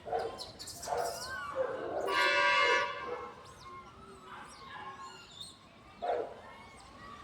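An animal giving a series of short yelps and squeaks with sliding pitch, and one longer, louder high-pitched squeal about two seconds in.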